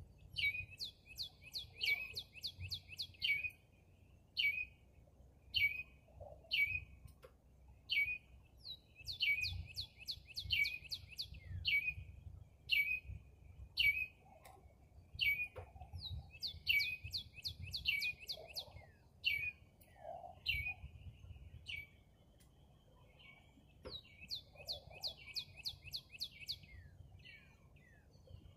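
A small bird chirping: short, high notes that each sweep downward, some single and some in quick runs of about ten, over a faint low rumble.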